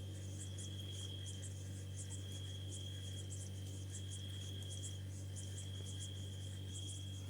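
Insect chirping in quick, evenly repeated high pulses with a thin steady high tone, over a constant low hum.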